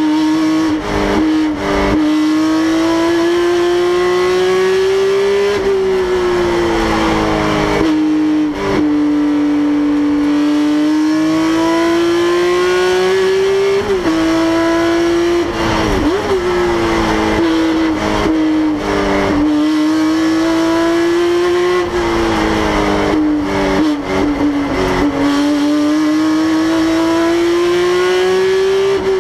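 Porsche GT3 Cup race car's 3.8-litre flat-six engine at full racing pace, heard from inside the stripped cabin. The engine note climbs steadily and falls away suddenly several times, as on upshifts and braking, with a few quick sharp jumps in pitch partway through, as on downshift blips.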